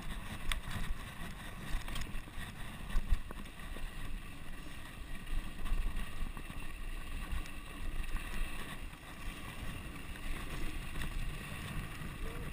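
Mountain bike rolling fast down a dirt singletrack: a steady, uneven rumble of tyres and frame over the trail mixed with wind on the microphone, with a few sharp knocks from bumps.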